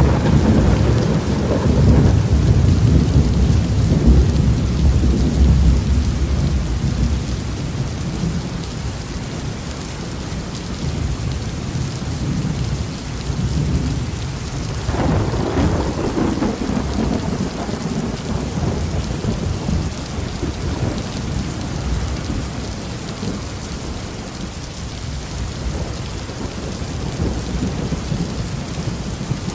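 Heavy rain falling steadily, with a long low roll of thunder over the first several seconds and a second thunderclap about halfway through that rumbles away.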